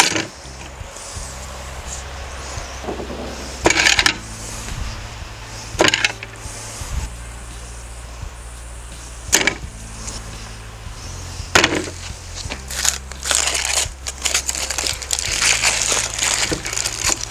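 Metal skewers clinking as they are set down one by one on a tray, four sharp clatters a few seconds apart, then aluminium foil crinkling continuously as a foil packet is opened near the end.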